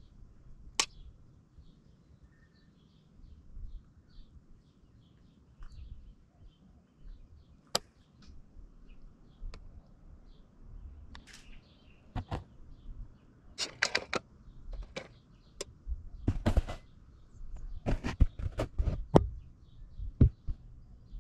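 Faint bird chirps in the background, with scattered sharp clicks and, in the second half, bouts of louder rustling and knocking from close handling.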